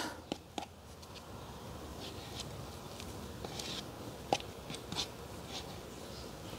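Faint scattered clicks and soft smacks of thick grease being scooped out of a tub with gloved fingers and a small tool.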